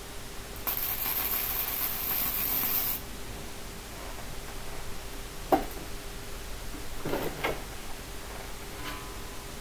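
MIG welder arc crackling with a hiss for about two seconds while a tack weld is laid on steel. It is followed by metal knocks as steel pieces are handled: a sharp knock about halfway through, the loudest sound, then a few more knocks and a click near the end, all over a faint steady hum.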